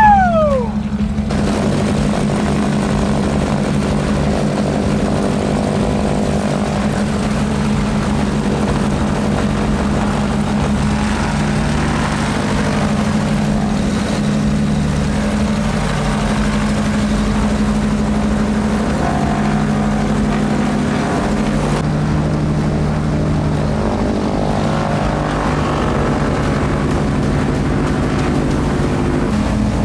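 Cessna 310 piston aircraft engine and propeller running steadily on a ground warm-up run, just after starting. A brief falling whine sounds right at the start.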